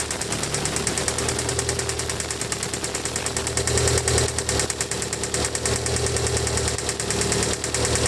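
Mitsubishi Lancer Evolution's 4G63 inline-four running at idle with a steady, rapid ticking and knocking. New lifters have not cured the tick, and the owner does not know its cause.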